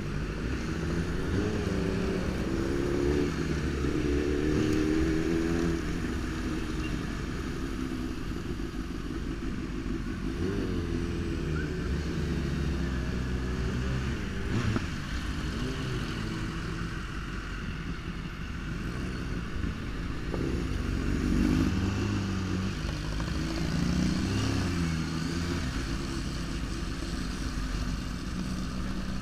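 Sport motorcycle engine running under way, heard from on board: its pitch rises and falls several times as the rider accelerates and eases off in traffic, over steady road noise.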